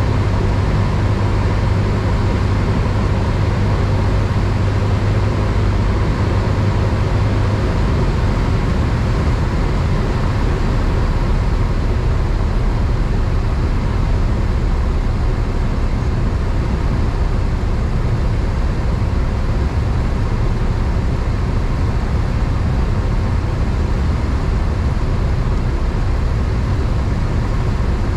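Piston engine and propeller of a single-engine light aircraft running steadily, heard inside the cockpit as a loud, even drone with airflow noise. A strong low hum in the engine note drops away about seven seconds in.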